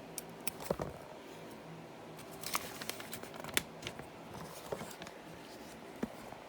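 Small plastic LEGO pieces clicking and rattling as they are handled and pressed onto a build: a string of irregular sharp clicks.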